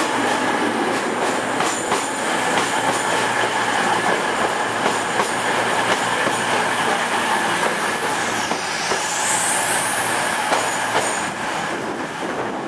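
Virgin Class 390 Pendolino electric train running along the platform with a steady rumble and hum, and scattered clicks from the wheels. About two-thirds of the way through, a high pitch dips and then rises.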